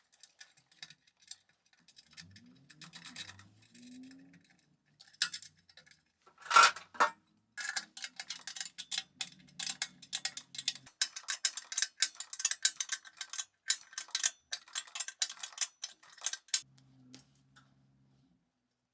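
Quick irregular small clicks, taps and scrapes, as of hand work on small hard parts, thickening into a dense run for most of the second half.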